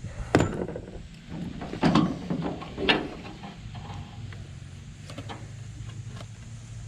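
Hand work on a pickup's tail light assembly as the screws come out and the plastic housing is worked loose: three sharp clacks and knocks in the first three seconds, then a few faint ticks, over a low steady hum.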